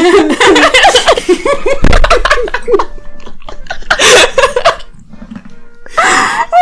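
People laughing hard, in repeated high-pitched bursts that die down briefly and break out again near the end. There is a low thump about two seconds in.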